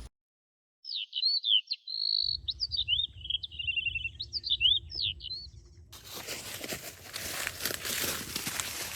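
A songbird singing a run of varied high whistles, sweeps and a quick trill for about four seconds. From about six seconds in, crackling rustle of footsteps through dry leaf litter takes over.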